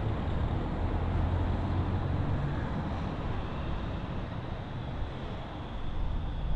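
Street traffic noise: a vehicle engine's low rumble that gradually fades, over a steady outdoor hiss.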